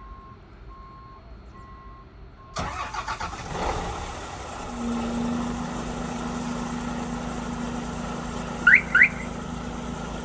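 Daewoo Prima dump truck's diesel engine being started by a remote-start alarm: regular short beeps, then about two and a half seconds in the starter cranks, the engine catches and settles into a steady idle. Two short rising chirps sound near the end.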